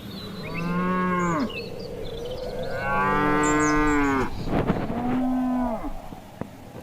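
Cattle mooing: three long calls, each dropping in pitch at its end.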